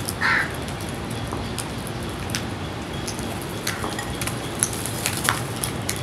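House crow giving one short, harsh caw just after the start, then scattered sharp clicks and taps of crows' beaks pecking at grain, over a steady low background rumble.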